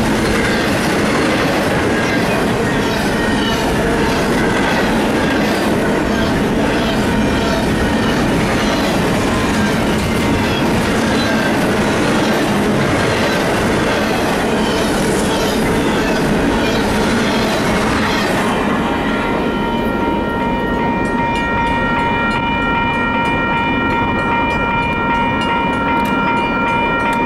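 Double-stack intermodal container train rolling past: steel wheels clattering over the rail joints, with faint wheel squeal. About two-thirds of the way through, the rolling noise gives way to a steady held high tone that lasts to the end.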